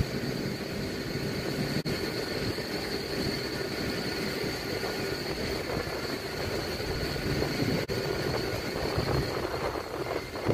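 Steady outdoor vehicle engine noise, with two very short dropouts, about two seconds in and again about eight seconds in.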